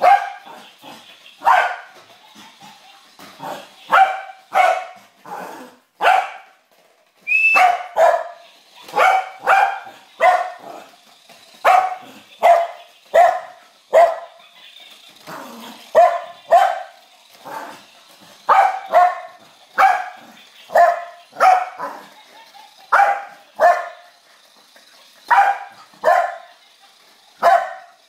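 A dog barking over and over in short, sharp barks, about one to two a second with brief pauses, and a short high squeak a little over seven seconds in.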